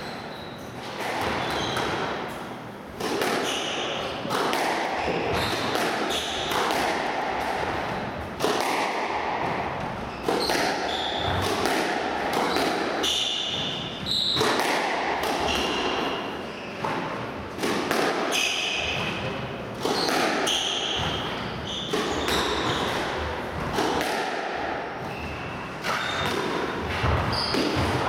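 Squash rally: the rubber ball hit by racquets and knocking off the court walls at irregular short intervals, with players' shoes squeaking and stepping on the wooden court floor.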